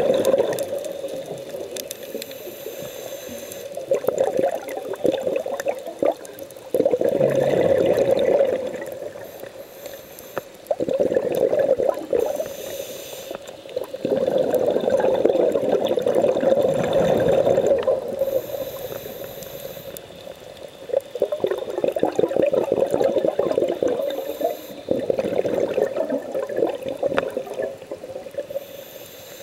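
Scuba diver breathing through a regulator underwater: exhaled bubbles burble and crackle in bursts of a couple of seconds, repeating every few seconds, with a short hiss of inhalation in some of the gaps between them.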